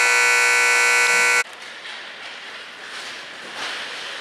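Ice arena's game buzzer sounding one loud, steady blare that cuts off suddenly about a second and a half in. Quieter rink noise follows.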